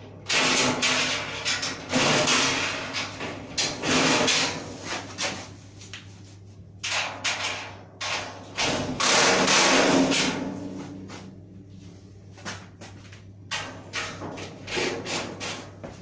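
Cordless screwdriver driving fasteners into the sheet-metal panels of a steel cabinet frame in four bursts, one about a second long near the middle. Knocks and rattles of the metal panels come in between.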